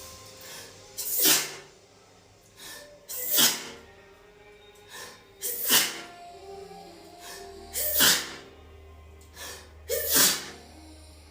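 A woman in a sneezing fit: five sharp sneezes about two seconds apart, each preceded by a short catching inhale.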